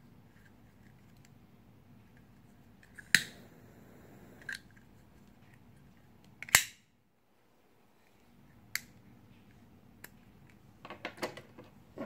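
Metal knife-shaped gas lighters clicking and clacking as they are handled and laid down on a table: two sharp metallic clicks, the first with a brief ring, then lighter taps and a quick run of clicks near the end.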